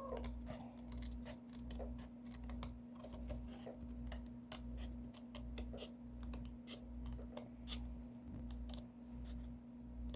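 Faint, irregular small clicks and taps of hands working a cardboard craft piece, over a steady low hum.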